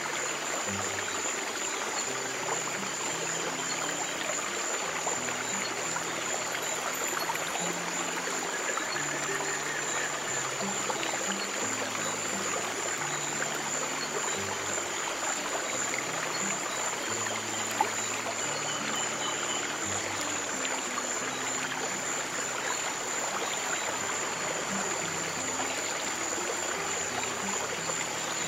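Stream of water flowing and trickling steadily, with slow, soft low notes of a relaxation piano underneath.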